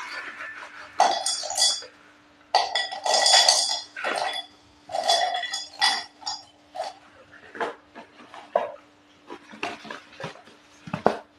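Slate pencils being bitten and chewed: a run of loud, irregular crunches, densest in the first half, then sparser sharp cracks.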